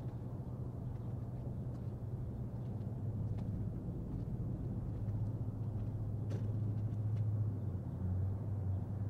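A machine running with a steady low hum, its pitch shifting slightly a few times, with a few faint ticks.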